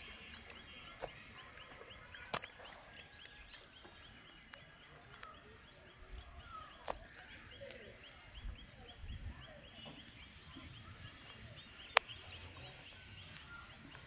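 Faint riverside outdoor ambience: a steady high chirping of about four short ticks a second, a few short bird calls, and several sharp clicks, the loudest about twelve seconds in.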